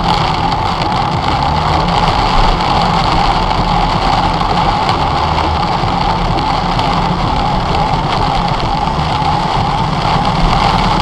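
Car driving on a wet road, heard from inside the cabin: steady engine and tyre noise.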